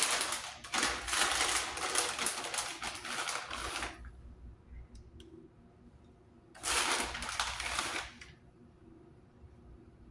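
Plastic bag of shredded cheese crinkling and rustling as it is handled: a crackly stretch of about four seconds, then a shorter burst about seven seconds in.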